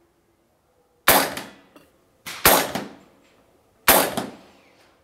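Umarex Komplete .22 nitrogen-powered PCP air rifle firing three shots about a second and a half apart, each a sharp crack with a short echo.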